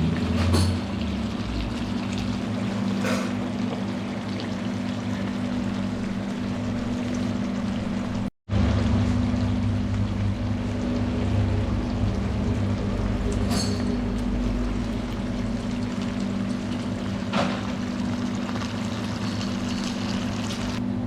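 Food frying in a hot pan, a steady sizzle over a low hum, with a few light clicks. The sound drops out for an instant about eight seconds in.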